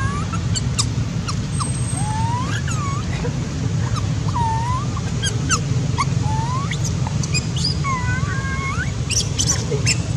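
Young long-tailed macaque giving about a dozen short, thin whimpering coo calls, each a quick whistle-like glide that rises or dips, at irregular gaps: the low cry of a hungry infant monkey denied milk during weaning. A steady low rumble runs underneath.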